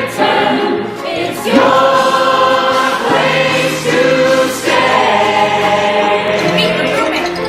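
Music with a group of voices singing held notes over a backing track.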